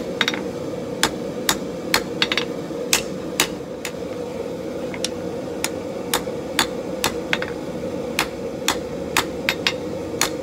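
Hand hammer blows on a red-hot bar of 1084 steel lying on the anvil face, drawing out the handle section behind a fuller mark. The strikes come about two a second, with a short pause near the middle, over a steady hum.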